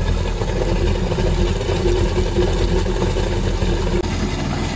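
The supercharged four-cylinder engine of a Yamaha FX SHO jet ski idling steadily while it warms up, running on freshly fitted 1000cc fuel injectors.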